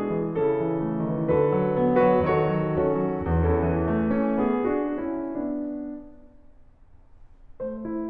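Background piano music, a run of notes that dies away about five seconds in, then a brief quiet pause before the piano starts again near the end.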